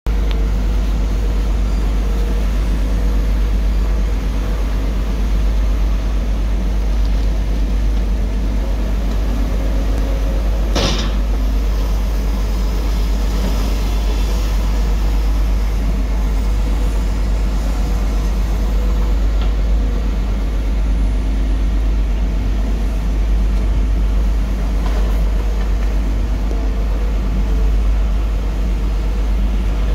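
Diesel engine of a long-reach Cat excavator on a marsh buggy running steadily under load as its boom and bucket work in the water, with a deep continuous rumble. A single brief sharp knock is heard about eleven seconds in.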